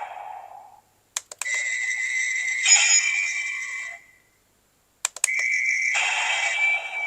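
Electronic special-attack sound effects from the Ultra Replica Eye Slugger toy's small speaker, with slashing and blast sounds over a steady high tone. Each new effect is set off by a quick double click of its button, about a second in and again about five seconds in, with a brief silence before each click.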